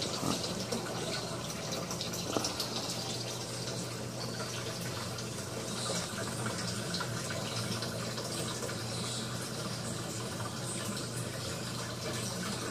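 Reef aquarium water circulating: a steady splashing and trickling of water, with a low steady hum underneath.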